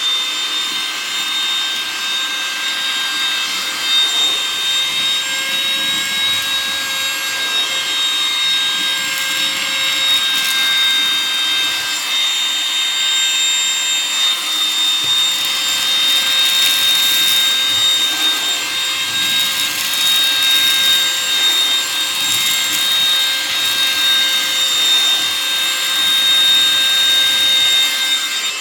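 Baseus A1 30-watt cordless handheld car vacuum running at full suction: a steady, high-pitched motor whine with a rushing airflow, used to pick up kitchen debris from a table top.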